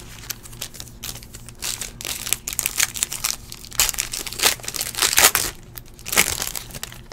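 Foil wrapper of a trading-card pack crinkling and tearing as it is pulled open by hand. The sound is an irregular run of crackles and rustles, loudest in the second half.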